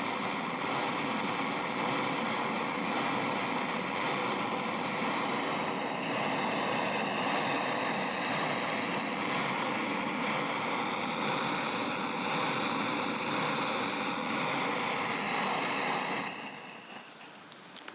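Stream flowing steadily, a constant rushing of water that drops away suddenly near the end.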